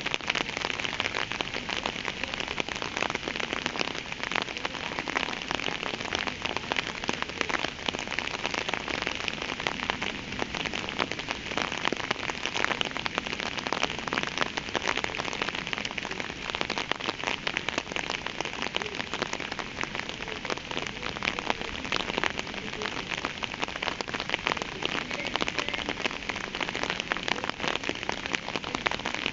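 Steady rain falling: a continuous hiss of many drops, with fine individual drop ticks throughout and no change in intensity.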